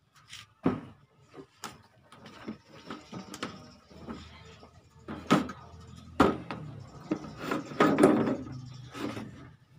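Plastic rear cabinet of a 20-inch Samsung CRT TV being worked loose and pulled off by hand: a string of knocks and clicks with scraping of plastic on plastic. The loudest scrape comes about eight seconds in.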